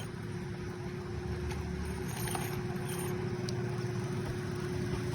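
Engine running steadily: a low hum with a constant mid-pitched tone. A few faint light knocks sound over it.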